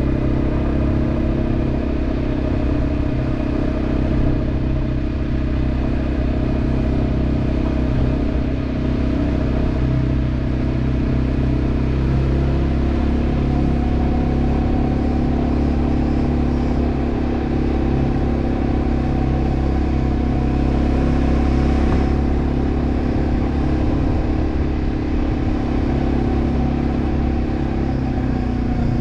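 Quad bike engine running steadily under way, its pitch rising slightly about halfway through and then holding.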